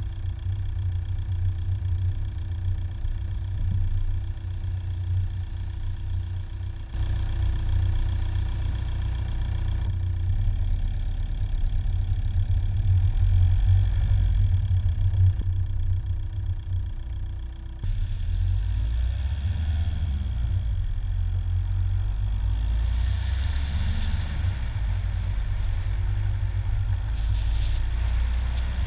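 A car driving, heard from inside the cabin: a steady low rumble of engine and road noise with faint steady whining tones above it. The sound shifts abruptly twice, about a third of the way in and again past the middle.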